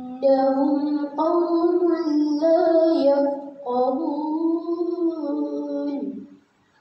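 A young girl reciting the Quran in tarannum, the melodic chanted style, with long held notes that step and waver between pitches. The phrase ends a little after six seconds in.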